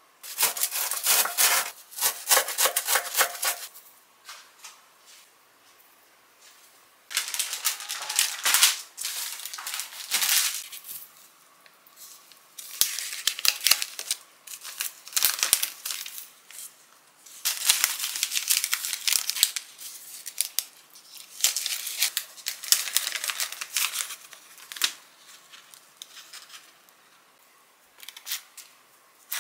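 Clear plastic bags crinkling and crisp puffed-grain oranda bars crackling as they are handled and packed. The sound comes in several bursts a few seconds long, with short quiet gaps between.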